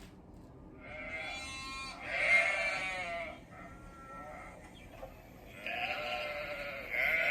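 Sheep bleating: a series of drawn-out, wavering bleats, the loudest about two seconds in, with a short faint one in between and more starting near the end.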